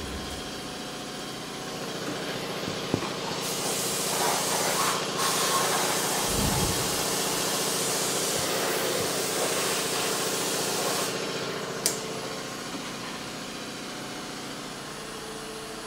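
Compressed-air blow gun blasting metal chips off a CNC mill's vise and table, a loud hiss from about three and a half seconds in to about eleven, with a short break near five seconds. Under it the mill hums steadily, and a sharp click comes just after the hiss stops.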